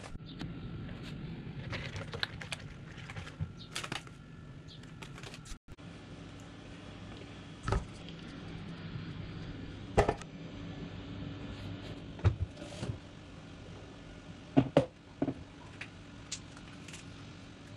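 Batter being mixed in a large plastic bowl with a spatula, with scattered clicks and several sharp knocks of utensils and containers being handled, over a steady low hum.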